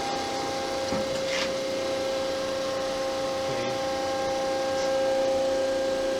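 Landis 2R universal grinder running, its motors and hydraulic system giving a steady hum with a constant whine. A higher second tone drops out about a second in, and a few faint clicks come from the machine.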